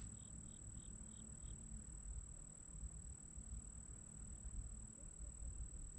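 Quiet outdoor background with a steady low rumble. Five short, high chirps come about three a second in the first second and a half.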